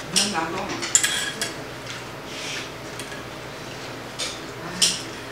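Metal spoon clinking against a stainless steel soup bowl while eating: a few sharp clinks near the start, about a second in, and again near the end.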